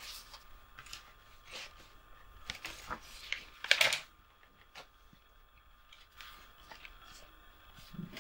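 Light clicks and handling noises at a desk, with a louder rustle of a newspaper being picked up a little before halfway.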